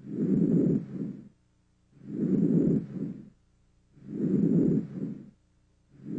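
Normal vesicular breath sounds heard through a stethoscope: soft, low-pitched breaths, three in a row about two seconds apart. Each inspiration lasts nearly a second and is followed at once by a shorter, fainter expiration, then a pause before the next breath.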